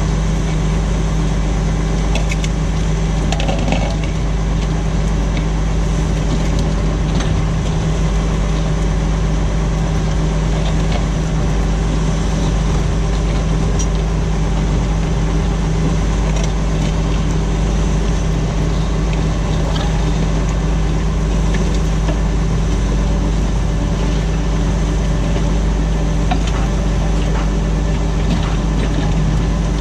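Tractor engine running steadily while pulling a plough, with light clicks and rattles scattered through it.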